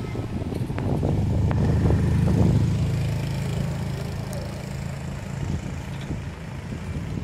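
A motorbike engine running past on the street, its low hum swelling over the first two or three seconds and then fading, with a few faint clicks.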